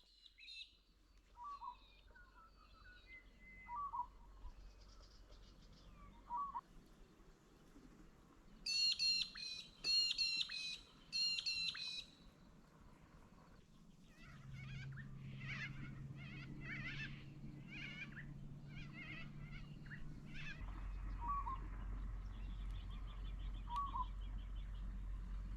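Birds calling outdoors, with several different short calls. The loudest is a set of three quick phrases of high, falling notes about nine to twelve seconds in, followed by a run of brisk chirps. A low, steady hum comes in about halfway and deepens near the end.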